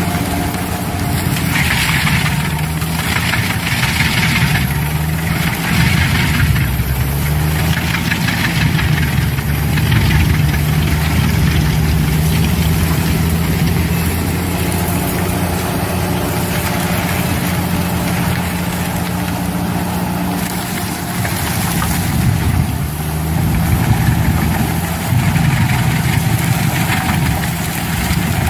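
Engine of a tree-shredding forestry machine running steadily, with repeated surges of harsher grinding noise in the first ten seconds and again near the end.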